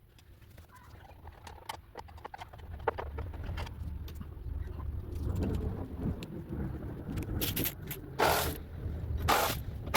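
Scattered clicks and knocks of hand tools working on a lawn mower being taken apart, over a low steady rumble, with three short loud hissing bursts near the end.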